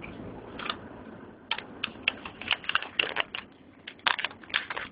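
Mobile phone being handled close to its microphone inside a moving car: a quick run of irregular sharp clicks and taps, several a second, starting about a second and a half in, over low road noise.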